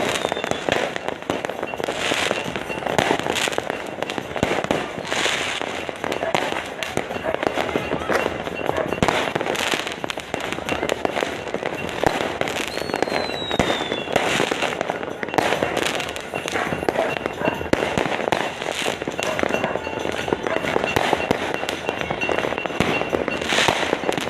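Fireworks and firecrackers going off without a break: dense crackling with heavier bangs every second or two, and a descending whistle about thirteen seconds in.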